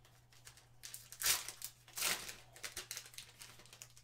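Foil trading-card pack wrapper crinkling as it is torn open, with two louder rips about a second and two seconds in among smaller crackles.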